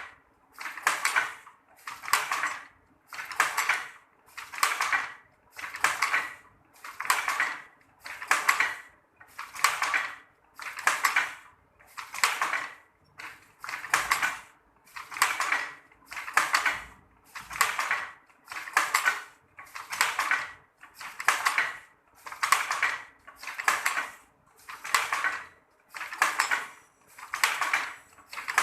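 Traditional manually worked sarong loom clattering in a steady weaving rhythm: a rattling stroke of its wooden and metal parts a little less than once a second, each one the same length and loudness.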